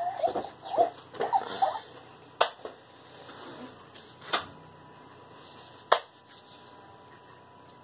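Three sharp plastic clicks, about a second and a half to two seconds apart, from a Hatchimal toy being handled in its plastic egg shell. The first two seconds hold brief warbling voice-like sounds.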